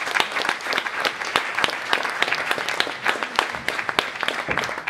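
Audience applauding, a dense patter of many separate hand claps.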